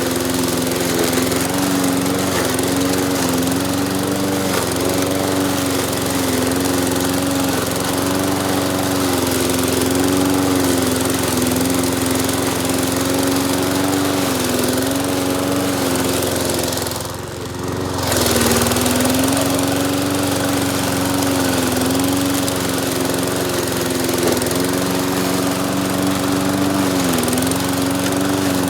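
Walk-behind lawn mower's small single-cylinder engine, a 148cc on a 20-inch side-discharge deck, running steadily while it cuts tall wet grass. Its pitch sags briefly several times as it bogs under the load, and the sound dips out for a moment just past halfway.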